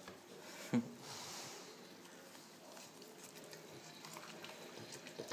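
French bulldog licking and gnawing at a corn cob, with soft wet mouth sounds and small irregular clicks. One short, louder sound comes about a second in.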